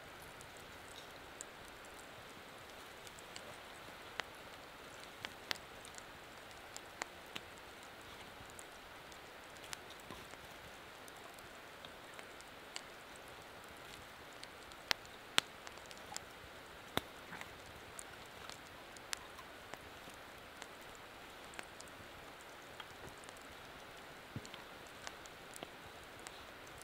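Small campfire crackling: irregular sharp pops and clicks over a steady soft hiss, as split sticks are stacked onto it. The loudest pops come about halfway through.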